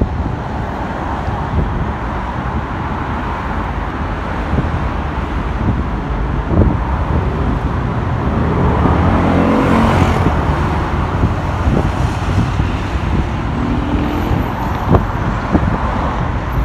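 Steady road traffic noise from a busy city street. About eight seconds in, a motor vehicle passes close: its engine rises to the loudest point about ten seconds in, dropping in pitch as it goes by, then fades back into the traffic.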